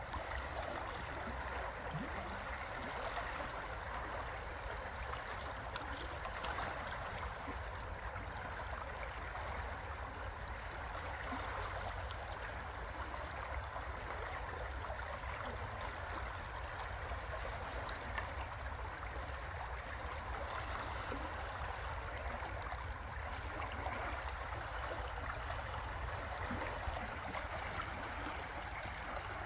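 River water flowing steadily: a continuous, even rush of moving water, with a low rumble underneath.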